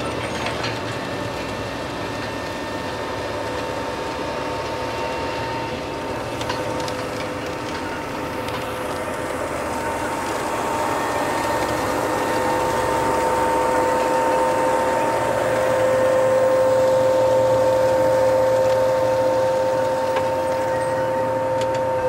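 John Deere 24-row corn planter running through the field behind its tractor: a steady whine from the planter's running fans over the rumble and rattle of the row units working the soil, growing louder about halfway through.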